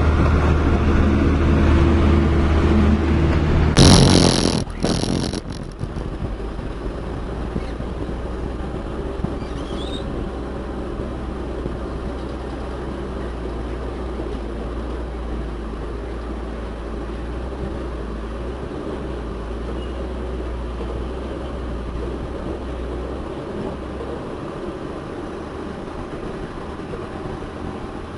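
Heavy diesel engine running loudly at first. About four seconds in comes a sudden, very loud rush of noise lasting about a second, with a couple of short bangs, after which the engine runs on more quietly.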